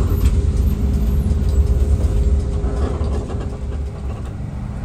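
Mercedes-Benz OH 1521 bus engine running as the bus moves off, heard from inside the passenger cabin: a steady low rumble with a faint steady whine above it, easing a little near the end.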